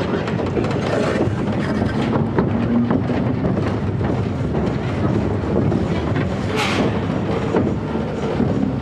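Zierer Force Two roller coaster train running along its steel track: a steady rumble with clattering wheels and wind on the microphone, and a short hiss about six and a half seconds in.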